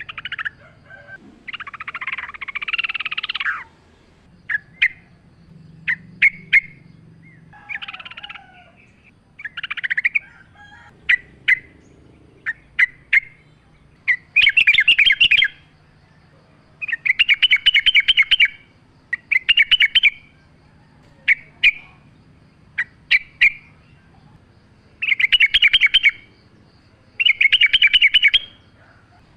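Yellow-vented bulbul (trucukan) singing: short scattered chirps at first, then from about halfway a series of rapid, stuttering phrases about a second long, repeated every two seconds or so.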